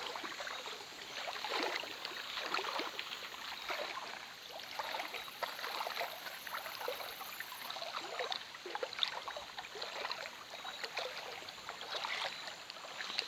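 River water splashing and trickling, with many small irregular splashes.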